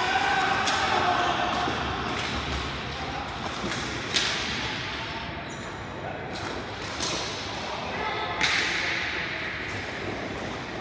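Ball hockey play: sharp knocks of sticks and the ball at irregular intervals, the loudest about four and eight and a half seconds in, each ringing on briefly. Faint players' voices sound underneath.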